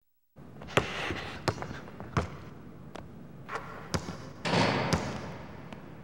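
A basketball bouncing on a hardwood court: a string of sharp, unevenly spaced bounces, with a brief rushing sound a little past the middle that is the loudest part.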